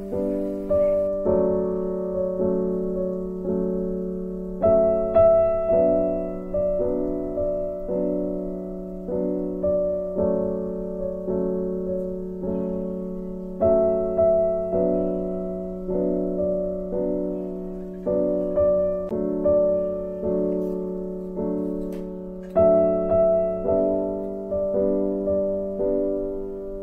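Background piano music: a slow, gentle melody of notes, each struck and then fading away.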